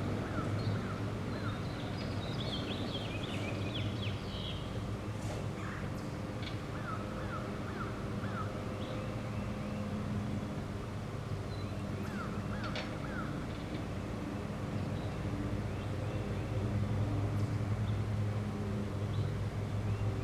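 Homemade sawmill's engine running steadily, getting a little louder near the end, while birds chirp in short calls over it.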